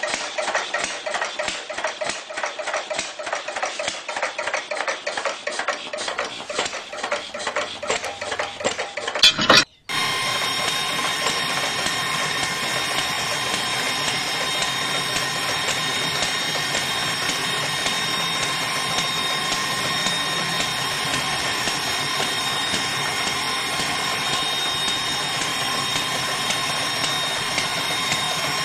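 Fast, uneven mechanical clatter as the toy tractor's model engine is turned by its hand crank. About nine seconds in there is a short loud knock and a brief drop-out. Then a small DC motor runs with a steady whine, spinning a metal drill rod into wet sand.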